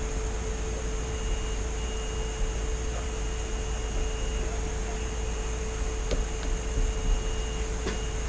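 Steady electrical hum and hiss of background room noise, with a faint click or two near the end.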